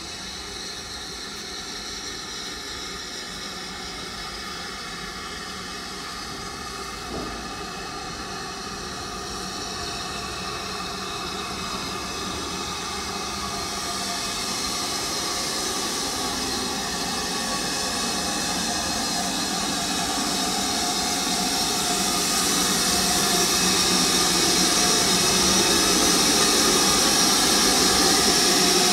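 BR Standard Class 4MT 2-6-4 tank locomotive 80136 drifting slowly in without exhaust beats, its steam hissing steadily. The hiss grows louder as it approaches and is loudest near the end, when it is alongside.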